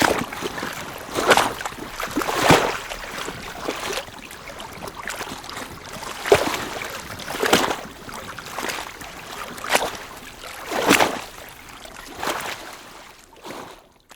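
Small lake waves lapping at the water's edge: gentle, irregular splashes about every second or so over a steady wash of water, fading out near the end.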